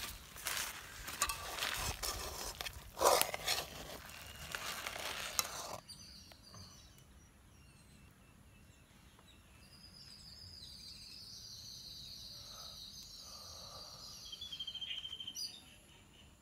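Clattering and handling noises with sharp knocks, the loudest about three seconds in, stopping abruptly about six seconds in. Then quiet outdoor ambience with a high chirping trill and a few short chirps near the end.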